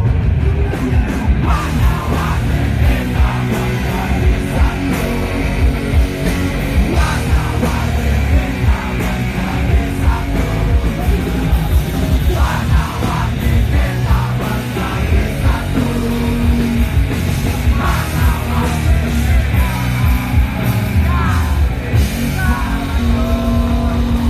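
Live rock band playing loud, with amplified electric guitars, bass and drums and a vocalist over them.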